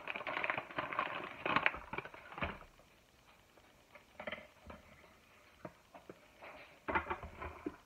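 Kitchen handling noises: scattered light knocks and clicks with rustling, as a wall cabinet is opened and pretzel sticks are fetched. Busiest in the first couple of seconds, sparse in the middle, with a few more knocks near the end.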